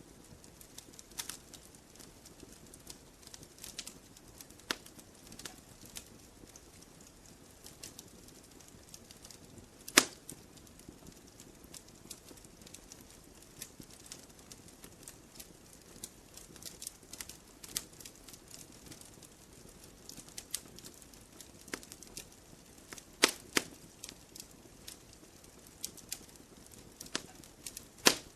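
Logs burning in a wood fire, crackling with frequent small snaps over a low hiss. A few louder pops come about ten seconds in and twice near the end.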